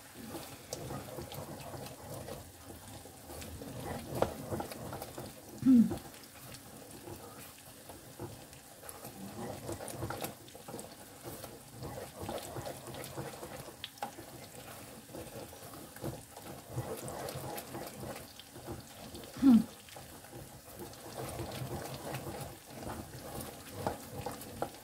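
Wooden spoon stirring and scraping scrambled eggs in a stainless steel saucepan on a hotplate, with a soft sizzle and light clicks as the eggs finish setting. Twice a short falling tone stands out above it, about six seconds in and again near twenty seconds.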